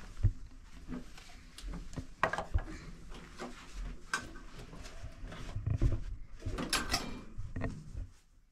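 Irregular knocks, light rattles and rubbing as a metal door's glass panes and frame are wiped down by hand with a cloth.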